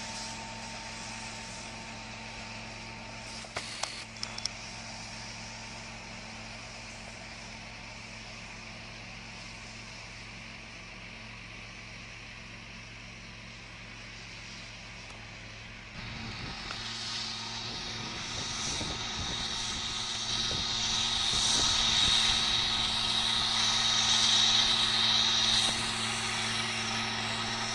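Farm tractor engines running in a hay field, a steady drone that grows louder about halfway through. A high whine rides on top for several seconds near the end.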